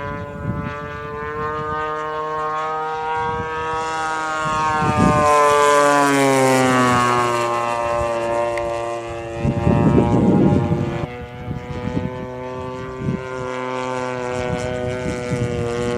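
The Zenoah G-62 two-stroke gas engine of a quarter-scale RC Hawker Hurricane running, its pitch dropping as the model passes about five seconds in, where it is loudest. A rush of noise comes about ten seconds in.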